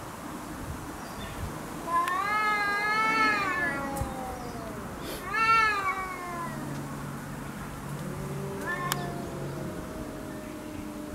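Domestic cats in a territorial standoff, yowling and growling at each other. A long wavering yowl comes about two seconds in and a second one falls in pitch around five seconds. A low steady growl follows, with a short call near the end.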